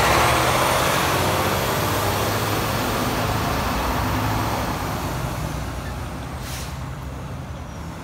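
Diesel engine of a semi-truck tractor running as the truck moves off, its sound growing steadily fainter. A short hiss comes about six and a half seconds in.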